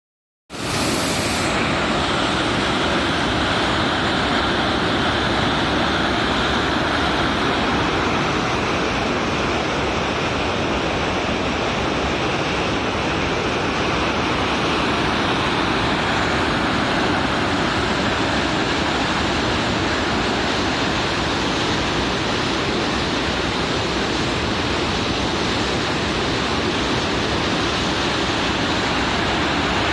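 Kivach waterfall on the Suna River: a steady, unbroken rush of falling water that starts about half a second in.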